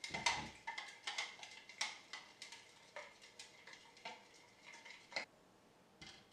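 Metal spoon stirring liquid in a measuring jug, clinking against the sides about two or three times a second; the clinking stops about five seconds in.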